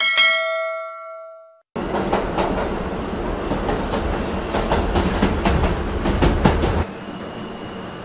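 A notification bell chimes once and rings out for over a second. Then a train on the rails starts abruptly: a loud rumble with the clickety-clack of wheels over rail joints, dropping to a quieter steady rumble near the end.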